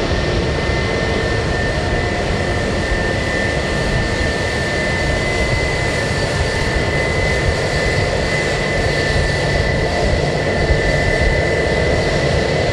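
Airbus A321-231's IAE V2500 turbofan engines running at low power as the airliner taxis past: a steady jet whine with a high tone over a low rumble.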